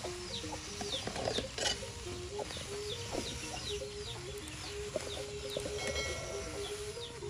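Chicks peeping over and over, short high notes falling in pitch, several a second. Under them runs a simple melody of flat low notes stepping up and down, like background music.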